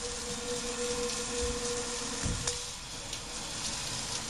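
Water spraying steadily from a 5-inch HotelSpa shower head set to its pulse massage jet, a constant hiss of spray, with a thin steady tone for the first two seconds or so and a few soft low knocks.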